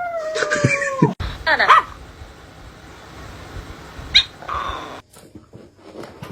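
A pet animal's long, drawn-out cry that slowly falls in pitch and breaks off about a second in, followed after a short gap by a briefer wavering call.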